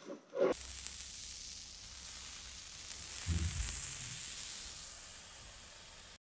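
Granulated sugar pouring in a steady stream into a glass bowl of raw eggs: a continuous hiss that swells in the middle and stops abruptly near the end.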